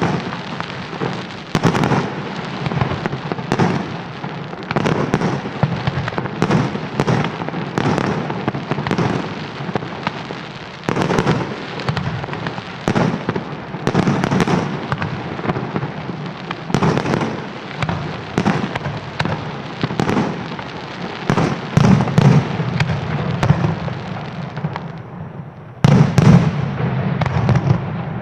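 Aerial fireworks display: shells bursting one after another, about one bang a second, with crackle between them. A louder salvo follows a brief lull near the end.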